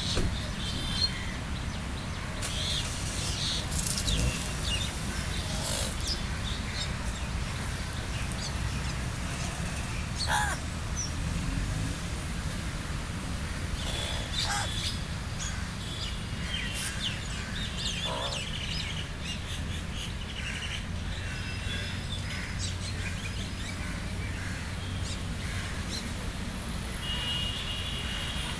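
Crows and other birds calling on and off, short separate calls with a few louder ones scattered through, over a steady low background rumble.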